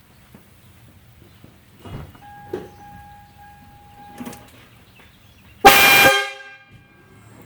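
One short blast of a four-trumpet air horn kit on a Toyota Tacoma, sounding several pitches at once as a chord. It starts abruptly about three-quarters of the way in and rings off over about a second.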